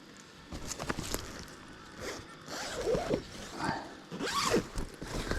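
A zipper being pulled open in several short rasping strokes, mixed with scratchy rustling and clicks.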